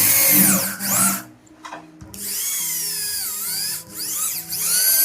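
Electric drill boring an 8 mm hole through a plastic gear, run in about three bursts, its motor whine rising and falling in pitch as the trigger is squeezed and eased.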